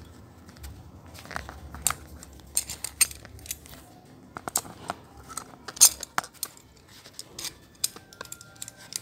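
Irregular metallic clicks and clinks as a round chainsaw file is fitted into a metal chain-sharpening guide.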